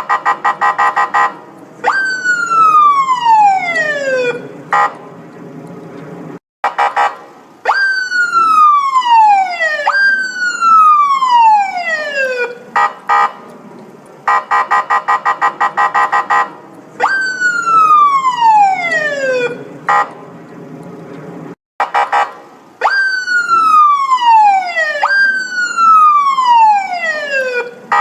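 Police siren: stretches of a fast pulsing tone alternate with long falling wails, each sliding down in pitch over about two and a half seconds, with a low rumble in the gaps between them. The same sequence repeats about halfway through.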